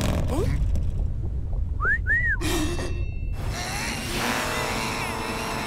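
Cartoon jet ski engine running with a steady low rumble. About two seconds in, two short whistle-like glides rise and fall over it, and from about three and a half seconds a denser, many-toned layer joins the engine sound.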